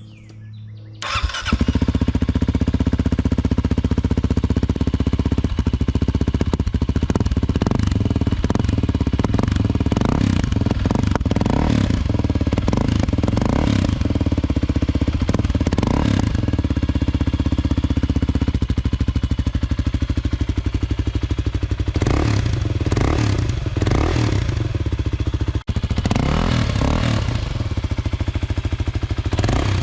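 2023 Kawasaki KLX 300 single-cylinder four-stroke engine, fitted with a Delkevic 14-inch stainless slip-on muffler, starting about a second in and then running through its new exhaust. The throttle is blipped repeatedly in two spells, roughly a third of the way in and again in the later part.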